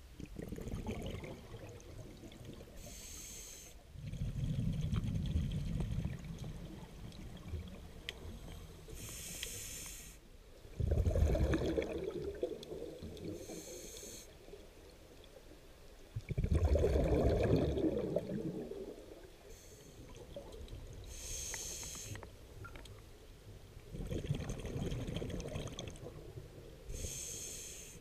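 Scuba diver breathing through a regulator underwater: a short, high hiss on each inhale, then a few seconds of low bubbling as the exhaled air escapes, repeating about every six seconds.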